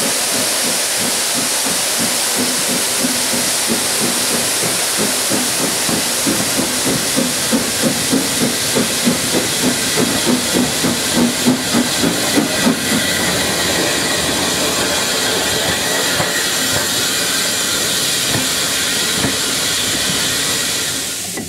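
Steam locomotive hissing steadily with escaping steam. In the middle a rhythmic beat of about two a second builds up for several seconds and then fades away.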